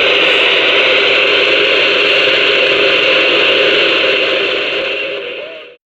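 CB radio receiver hissing with steady static through its speaker, the squelch open with no signal. The hiss sags a little and then cuts off abruptly just before the end.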